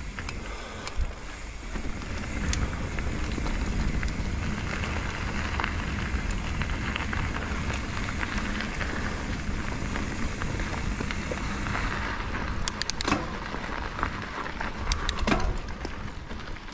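Mountain bike rolling down a dirt trail: steady tyre noise on dirt and gravel with wind on the microphone, and a run of sharp rattles and knocks about three-quarters of the way through as the bike goes over rough ground.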